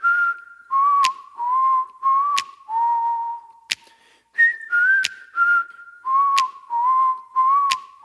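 A person whistling an unaccompanied tune in short held notes that step downward, played twice with a brief pause between. A sharp click sounds about every second and a half.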